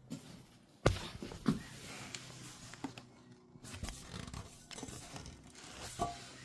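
Handling noise: a few sharp knocks and clicks over rustling, with no engine running.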